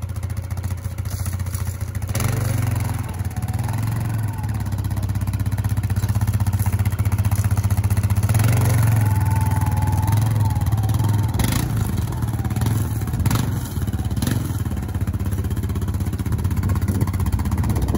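Yamaha Grizzly ATV engine running as the quad is ridden slowly around, picking up a little about two seconds in and again near the middle. A few sharp knocks come in the second half.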